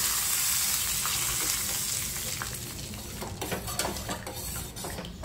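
Hot tempering oil with fried garlic, panch phoron and curry leaves sizzling as it hits tamarind broth in a steel pot, the hiss fading over a few seconds. In the second half a spoon stirs the pot, clinking against the steel.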